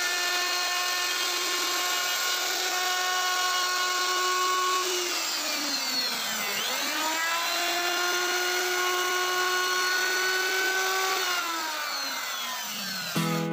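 Pro-Quip 900 W trim router running at full speed and cutting a groove into a plywood door panel, giving a high, steady whine. The pitch sags about five seconds in, dips lowest around six and a half seconds, then comes back up, and it falls off again near the end.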